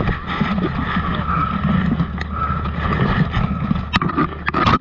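Cloth rubbing and rustling over a chest-mounted camera's microphone as the wearer moves, a steady muffled rumble, with a couple of sharp clicks near the end.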